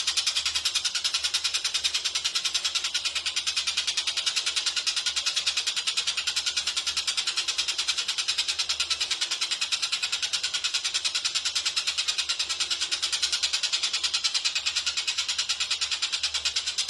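Tengkek buto (Oriental dollarbird) calling in a fast, unbroken string of harsh, high rattling 'shooting' notes, about six a second. A faint low hum runs underneath.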